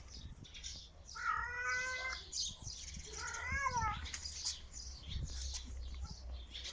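Domestic cat meowing twice, each call about a second long: the first fairly level in pitch, the second wavering up and down.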